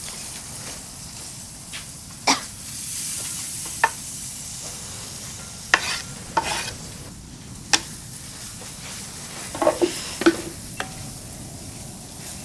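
Thick beef curry sizzling in a wide metal pan as a wooden spatula stirs it, with sharp scrapes and knocks of the spatula against the pan every second or so.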